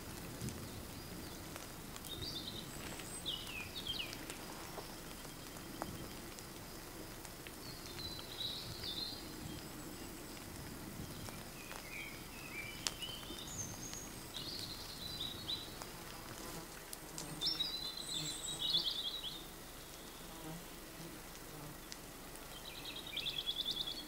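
Songbirds singing short, separate phrases and trills in woodland after rain, the loudest about three-quarters of the way through and a fast trill near the end. Scattered drips and raindrop ticks sound over a steady low background hush.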